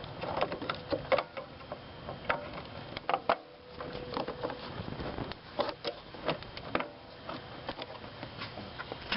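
Irregular plastic clicks, taps and rattles of hands pushing a wiring harness connector onto a newly fitted blower motor resistor.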